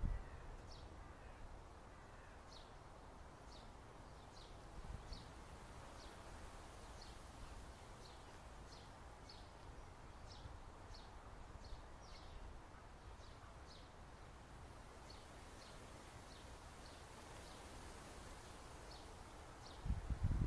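A small bird repeating short, high, falling chirps, about one or two a second, faint against a low background rumble.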